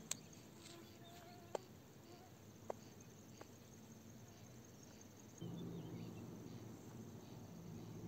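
Quiet riverbank ambience at dawn: faint, high, steady insect chirring, with a few short sharp clicks in the first few seconds. About five seconds in, a steady low hum sets in.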